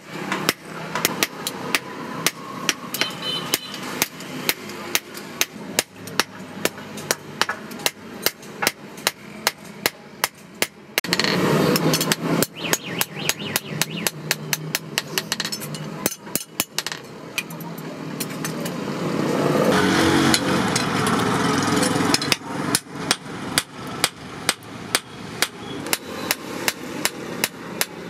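Hand hammer striking a leaf-spring steel knife blank on a steel anvil block, sharp metallic blows at about two to three a second as the blade is forged to shape. A louder rushing noise swells under the strikes twice, around eleven and twenty seconds in.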